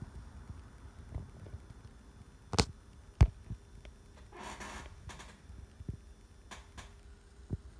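Handling of a toy's cardboard box with a clear plastic window: a few sharp taps, the loudest two just over half a second apart about two and a half seconds in, then a brief rustling rub and several lighter taps and clicks near the end.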